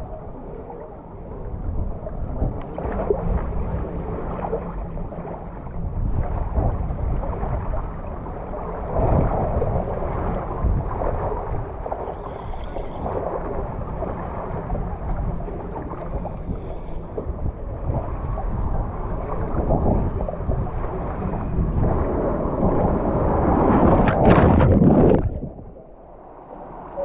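Water rushing and swishing under a rider sliding feet-first down an open fibreglass body waterslide, with wind buffeting the microphone. Near the end the rider hits the pool at the bottom with a loud splash, after which the sound drops off sharply.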